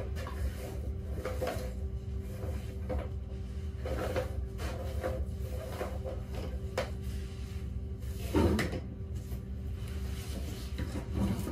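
Knocks, scrapes and rustling as old bedding and decor are pulled out of a reptile enclosure and new material is put in, with a louder knock about eight seconds in. A steady low hum runs underneath.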